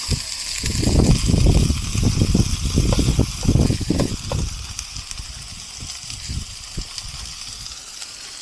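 Meat sizzling on an electric grill, a steady hiss, with a run of irregular low thumps and rumbles through the first four seconds or so that then die away.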